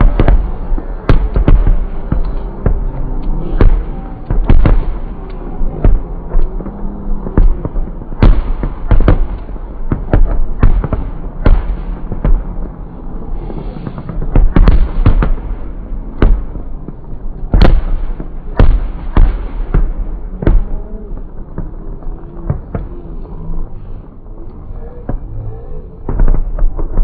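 Fireworks display: aerial shells bursting in a rapid, irregular barrage of booms and cracks, often several a second, thinning a little in the last few seconds.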